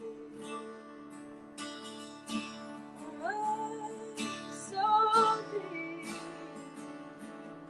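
Acoustic guitar strumming sustained chords, with a woman's voice singing a few gliding, held notes near the middle, loudest about five seconds in.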